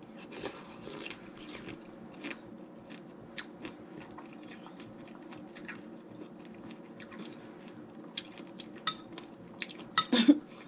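Close-up chewing of a mouthful of fresh berries and pomegranate seeds in coconut water: irregular wet clicks and soft crunches, over a faint steady hum. A short vocal sound comes near the end.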